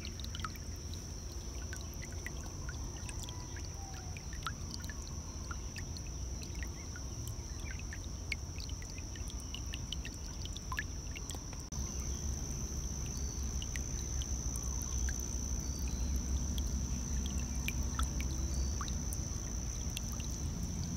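Shallow stream trickling over stones, with many small plinks and gurgles over a low rumble of flowing water, which grows louder about halfway through. A steady high-pitched tone runs underneath.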